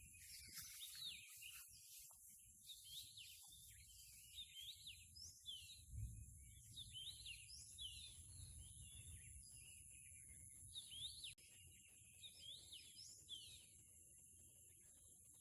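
Small birds chirping and calling in quick, overlapping notes, faint, over a steady high-pitched hum.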